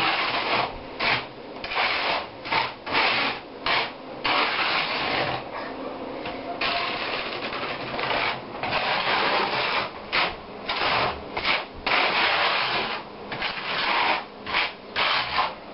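Hand trowel scraping and spreading thinset mortar over wire mesh on a subfloor, in many short back-and-forth strokes with a few longer unbroken sweeps.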